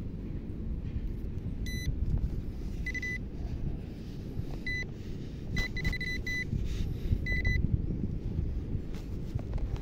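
Handheld metal-detector pinpointer beeping in short high tones as it is probed through beach sand, signalling buried metal. The beeps come in separate groups, with a quick run about six seconds in. A steady low rumble runs underneath.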